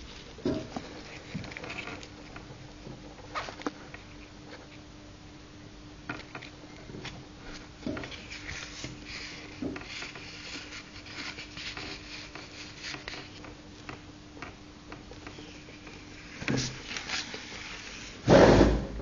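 Handling noise: scattered light rubs and taps close to the microphone over a faint steady hum, with one loud bump near the end.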